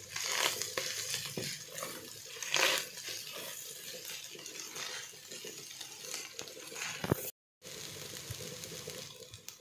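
Minced mutton frying in a wok as a spatula stirs it, with a steady sizzle and the scrape and click of the spatula against the pan. The sound cuts out for a moment about seven seconds in.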